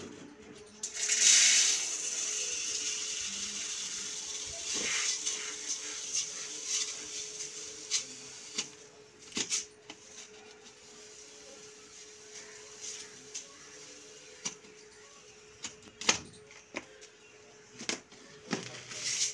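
Wheat grain pouring from the spout of a large metal storage drum into a steel pot: a rushing hiss that starts about a second in and slowly tapers off, followed by scattered clicks and knocks as the grain and pot are handled.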